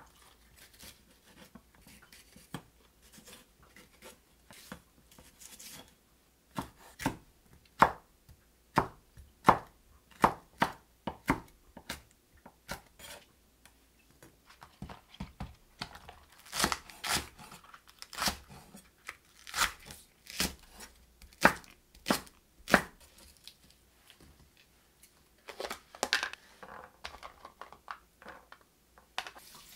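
Knife chopping on a wooden cutting board: a long series of separate, irregular strikes, with short pauses between runs.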